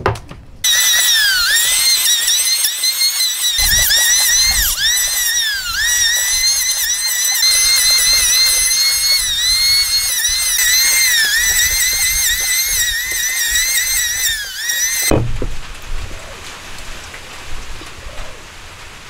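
Electric hand planer running with a high whine that sags in pitch again and again as the blades bite into a log, then stops about fifteen seconds in.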